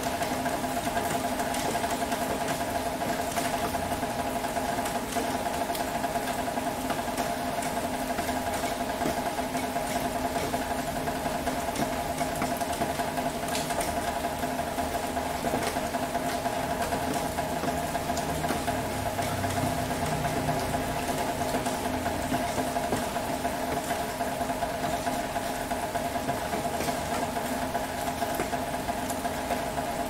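City rain ambience: steady rain with a continuous engine hum underneath, and a deeper hum that swells in the middle and fades again.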